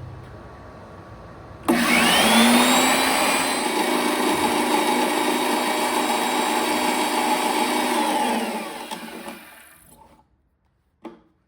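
Electric power tool motor switched on, whining up to speed, running steadily for several seconds, then winding down to a stop as the shop's circuit breaker trips and cuts the power. A short click follows near the end.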